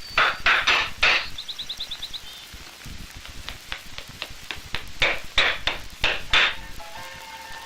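Blacksmith's hammer striking metal on an anvil, each blow ringing. It comes as a run of heavy blows, then a quick light patter of taps, some lighter taps, and a second run of heavy blows.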